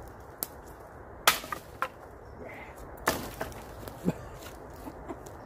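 Dry dead sticks and branches cracking and clattering as they are snapped and thrown aside, with several sharp cracks. The loudest comes about a second in.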